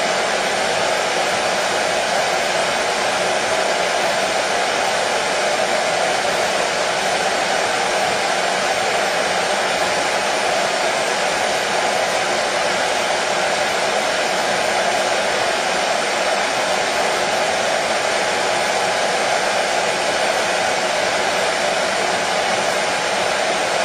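Electric hair dryer running steadily: a continuous, even blowing hiss that does not change in pitch or level.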